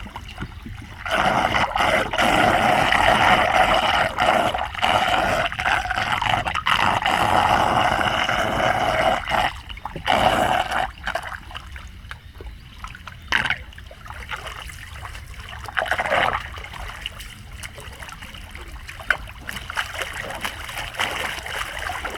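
Flood water rushing and gurgling into a street drain, steady and loud at first, then dropping to a quieter trickle with a few short splashes.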